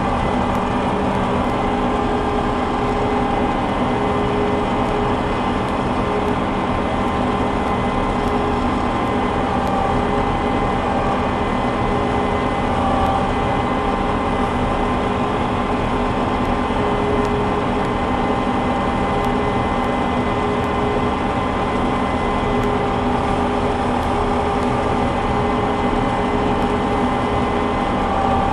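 Combine harvester running steadily while cutting soybeans: a constant drone of engine and threshing machinery with a steady hum of several tones.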